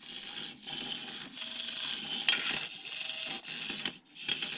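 Tiny 1/76 scale RC car's electric motor and gears whirring in short spurts as the throttle is blipped, with a sharp click about two seconds in.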